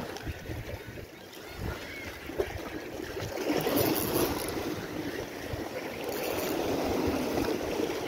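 Sea surf washing and breaking against shoreline rocks, the wash swelling about three seconds in and staying loud.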